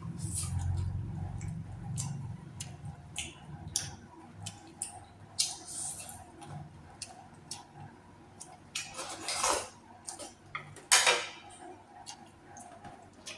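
Eating at a table close to the microphone: chopsticks or spoon clicking against dishes over and over, with chewing between the clicks and two louder noisy sounds about nine and eleven seconds in. A low hum fades out about four seconds in.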